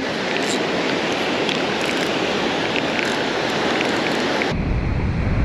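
Gulf surf breaking and washing onto a sandy beach. About four and a half seconds in it cuts to wind buffeting the microphone with a low rumble.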